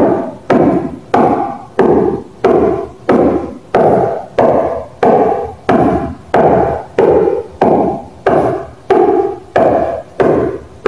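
Fingers of an open hand striking a firm surface in a steady rhythm, about one strike every 0.6 seconds. Each strike is a sharp hit that dies away over about half a second. These are repeated finger-conditioning strikes.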